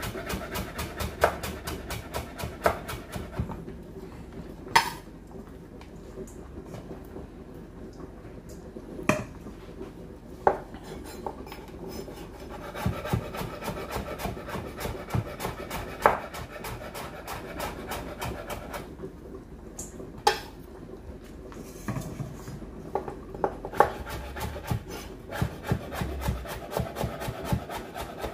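Chef's knife slicing carrot into thin strips on a bamboo cutting board: quick runs of the blade tapping the wood, several strokes a second, broken by short pauses and a few louder single knocks.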